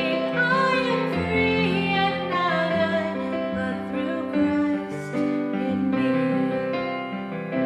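Music: a woman singing a melody with vibrato over sustained piano or keyboard chords.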